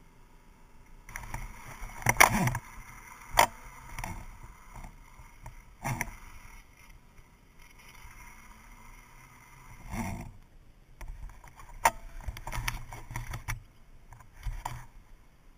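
Water splashing and rushing against a camera riding low on a lake, coming in irregular loud bursts: the loudest about two seconds in, more around six, ten and twelve seconds.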